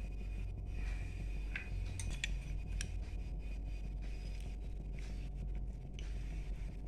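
A steel spoon scraping and scooping solid ghee out of a bowl, with a few light clicks and scrapes, mostly in the first half, over a steady low hum.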